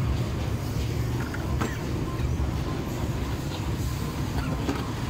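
A steady low rumble, with a few light scrapes and clinks of a metal spatula stirring shrimp in sauce in a carbon-steel wok.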